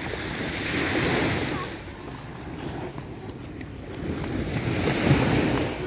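Waves washing up on a sandy beach: two surges of surf, one about a second in and a louder one near the end.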